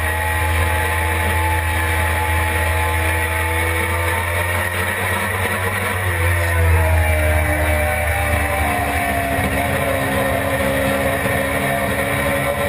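Suzuki GSX-R600 inline-four engine at track speed. Its pitch dips about midway as the bike slows for a corner, then climbs steadily as it accelerates out.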